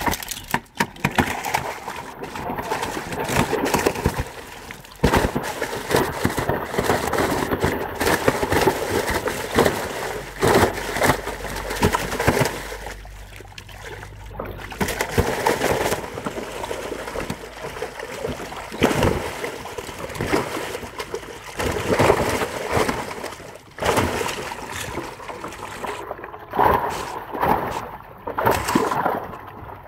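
Large carp thrashing in a water-filled tarpaulin live well, with irregular splashing and sloshing water.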